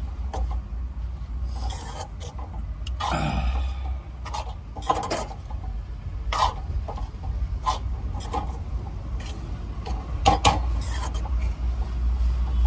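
Metal spatula scraping and stirring poha in a metal kadhai, with irregular clinks and scrapes against the pan as the poha sticks a little to the bottom. A steady low hum runs underneath.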